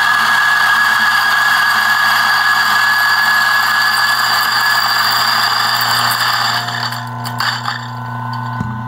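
DF64 Gen 2 single-dose flat-burr coffee grinder with an AC motor, running and grinding beans into a dosing cup: a steady motor hum under the gritty rattle of beans going through the burrs. About seven seconds in, the grinding noise thins out and the level drops, leaving mostly the motor hum.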